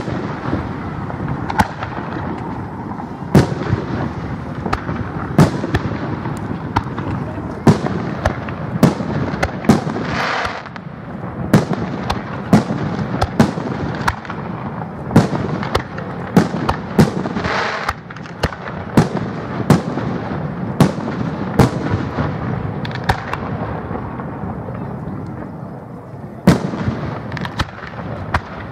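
Aerial firework shells bursting in a rapid, irregular series of sharp booms, often one or two a second, thinning out near the end before one last loud boom.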